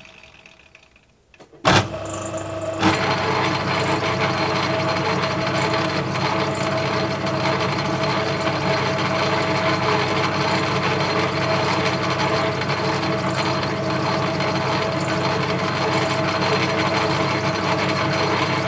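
Myford Super 7 metal lathe switched on with a sharp click a little under two seconds in, then running steadily, a hum with a constant whine from its spindle drive and change-gear train.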